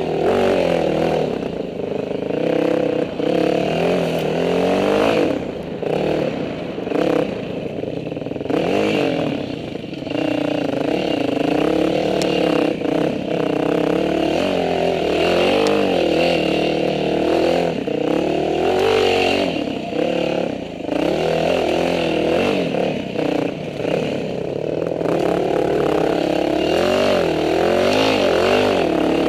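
Dirt bike engine under hard riding over rough trail, its pitch rising and falling continuously as the throttle is worked on and off.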